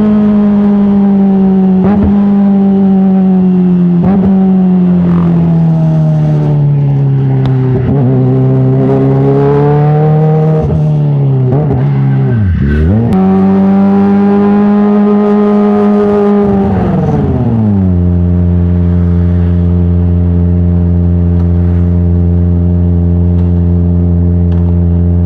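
Kawasaki ZX-25R inline-four through an Arrow titanium full-system exhaust, running at high, held revs that slowly sag and swell. About halfway through the revs dip sharply and pick straight back up. After about seventeen seconds they drop to a steady lower speed.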